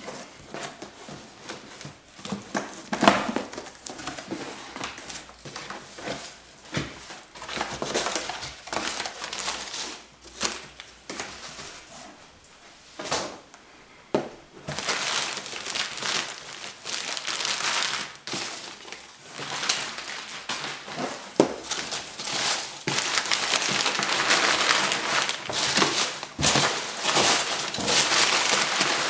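Cardboard shipping box being unpacked by hand: tape and box flaps worked open, then hands rummaging through foam packing peanuts and crumpled paper, a busy irregular rustling and crinkling with sharp crackles. The rustling grows denser and more continuous about halfway through.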